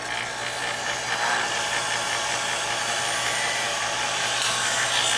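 Chef's Choice electric knife sharpener running, with a steel knife blade drawn through its third-stage polishing slot against the spinning discs. It makes a steady, loud grinding hiss over the motor's hum, which cuts off at the very end as the blade leaves the slot.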